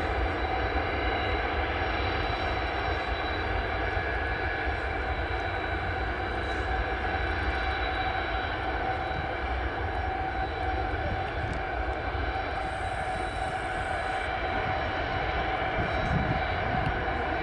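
Antonov An-124's four D-18T turbofan engines running steadily at taxi power: a constant jet whine with a high tone over a low rumble.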